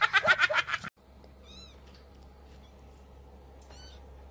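Two short, high-pitched cat meows over a faint low hum. Loud music cuts off suddenly about a second in.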